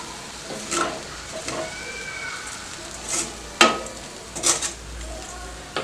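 Wooden spatula stirring and tossing poha (flattened rice) in a stainless steel kadai, with a few irregular sharper scrapes against the metal.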